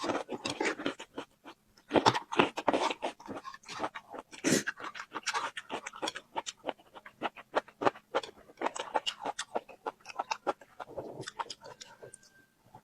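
Close-up mukbang eating sounds: a person chewing food in quick, irregular crunches with wet mouth clicks, pausing briefly now and then.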